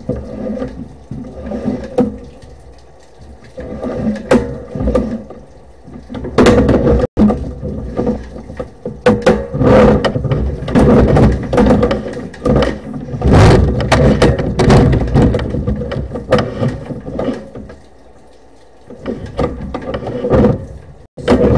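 Sewer inspection camera being pulled back up the drain line: irregular knocking, scraping and rumbling of the push cable and camera head, with quieter stretches now and then.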